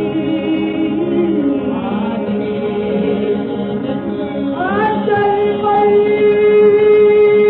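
Old Albanian song played from a 1930 Victor 78 rpm record: a vocal group singing with instrumental accompaniment. About five seconds in, one long note slides up and is held.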